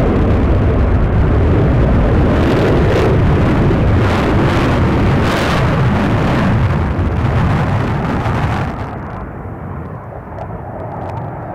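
Saab JAS-39C Gripen fighter's single Volvo RM12 turbofan running in a loud jet roar during a low display pass. About nine seconds in, the roar drops away sharply and loses its hiss as the jet flies off.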